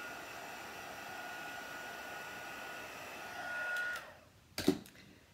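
Embossing heat tool blowing hot air to melt clear embossing powder: a steady rush of air with a steady whine. It is switched off about four seconds in and the whine drops away, followed by a single knock.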